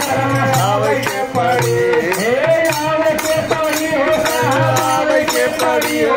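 Devotional bhajan: a man sings into a microphone, amplified through a PA speaker, over a dholak drum and hand percussion keeping a steady beat.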